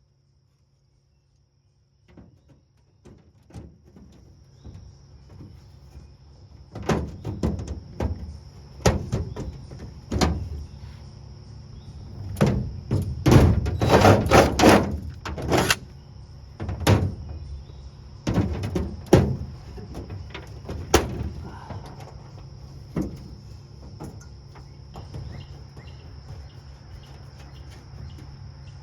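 Irregular metallic knocks and clatters from hand tools working on a sheet-metal body panel while battery terminal posts are fitted and tightened into it. There is a dense run of quick knocks midway, and the knocks thin out near the end.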